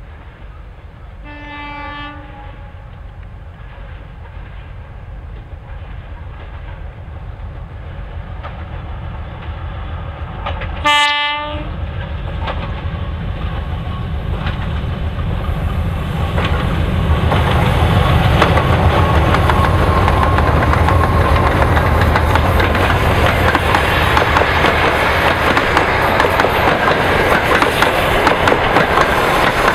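2TE10M diesel locomotive approaching with a passenger train. Its horn sounds once about a second in, then again, shorter and louder, about eleven seconds in. After that the low engine rumble and the noise of wheels on rail grow steadily louder as the train draws near.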